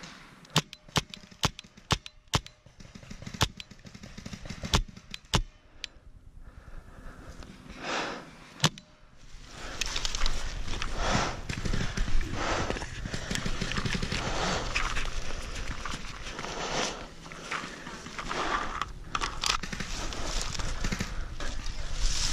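Sharp single paintball marker shots, about ten, spaced irregularly over the first nine seconds. Then footsteps running and crunching through dry fallen leaves, with the rustle of gear.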